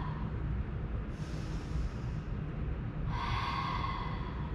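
A woman breathing audibly while holding an exercise position, with two long breaths, one about a second in and one about three seconds in. A low steady hum runs underneath.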